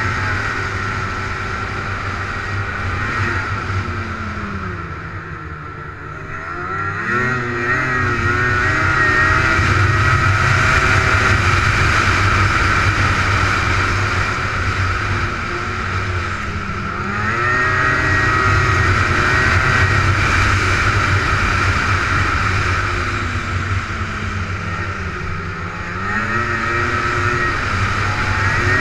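Snowmobile engine running at speed, its pitch dropping and climbing again about three times as the sled rides over the snow.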